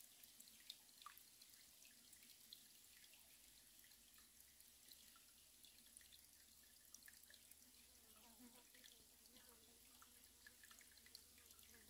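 Faint trickling and dripping of shallow stream water, with scattered small water ticks.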